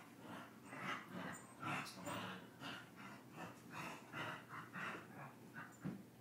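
Two small dogs play-fighting, making a rapid string of short, breathy sounds, two or three a second, that stop just before the end.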